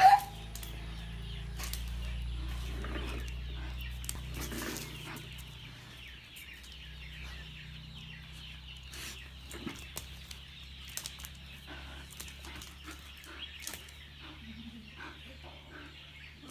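Bull terrier and puppies moving about on a tiled floor, with scattered short clicks of claws and scuffling, over a steady low hum in the first few seconds. A short sharp animal cry comes right at the start, and faint bird calls sit in the background.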